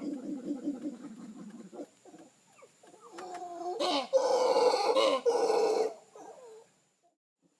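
Animal calls: a rapid run of low calls at first, then a louder, longer call from about four to six seconds in, which fades away near the end.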